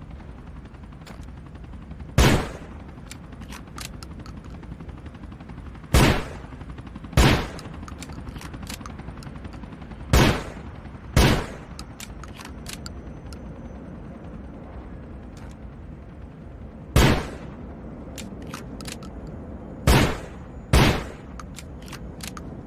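Sawn-off shotgun firing eight loud shots, several in pairs about a second apart, with small clicks between the shots over a steady background hiss.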